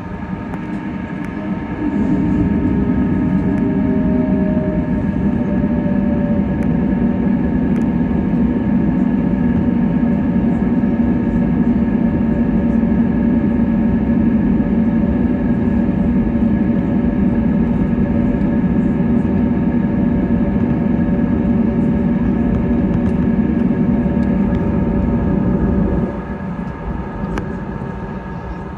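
Cabin sound of an Airbus A320neo taxiing: a steady engine whine with several held tones over a low rumble. The rumble gets much louder about two seconds in and drops back shortly before the end.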